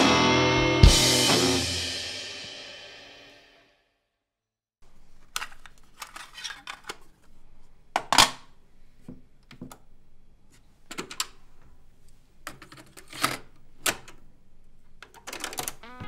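Soundtrack music with drums fading out over the first few seconds, then a moment of silence. After that a faint steady hum under scattered sharp clicks and knocks from a hand working the buttons and deck of a JVC micro component stereo, the loudest click about halfway through.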